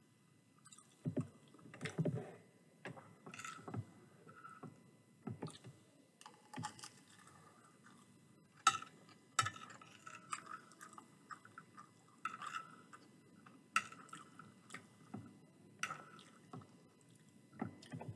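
Chewing of chicken curry and rice, with irregular sharp clinks and scrapes of a metal fork against the plate as mouthfuls are scooped up.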